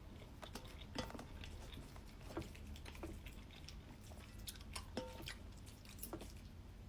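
A person chewing a mouthful of noodles, with soft, irregular wet clicks and smacks of the mouth.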